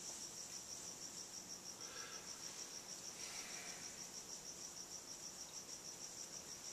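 Faint, steady high-pitched chirping made of rapid, even pulses, insect-like.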